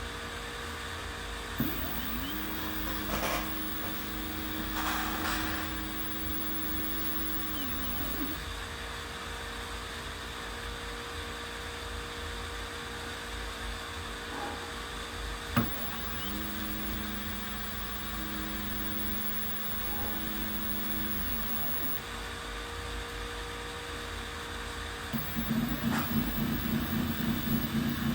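Stepper motors of an OpenBuilds OX CNC router driving its axes in two moves. Each move follows a sharp click and is a steady whine that glides up in pitch as it starts and down as it stops. A louder, rhythmically pulsing machine sound starts near the end, over a steady hum.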